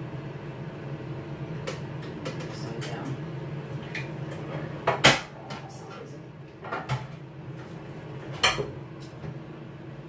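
Metal rotisserie spit and forks clinking and clanking against a metal baking tray as a chicken is skewered. There are a few sharp clanks, the loudest a double clank about five seconds in, over a steady low hum.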